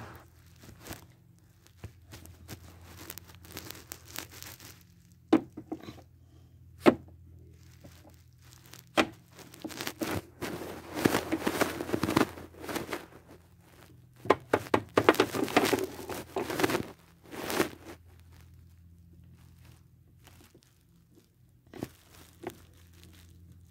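Handling noise: sharp knocks of small plastic toy figures being moved and set down, and two longer stretches of rustling as the phone is handled and swung around, over a faint steady low hum.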